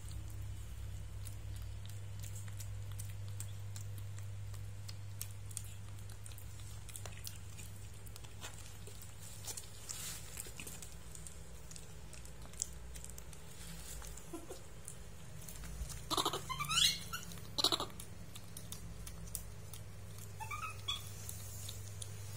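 Baby monkeys eating, with scattered faint clicks of food handling over a steady low hum. About two-thirds of the way in come a couple of loud, short, high-pitched squeals that sweep upward, and fainter squeaks a few seconds later.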